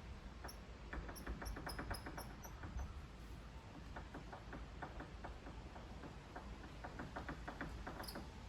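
Vevor MX 400 mini lathe headstock squeaking as the spindle turns: short high chirps a few times a second in the first few seconds and again near the end, over light rapid clicking from the headstock. It is the squeak the owner is hunting down to lubricate, which he thinks is coming from the back of the headstock.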